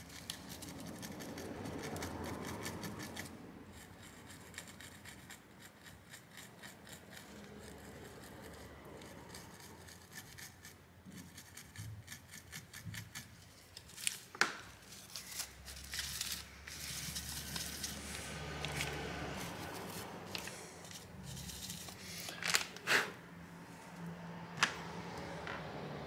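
A toothbrush scrubbing rapidly over a graphics card's circuit board, followed by softer rubbing and handling. In the second half there are a few sharp clicks.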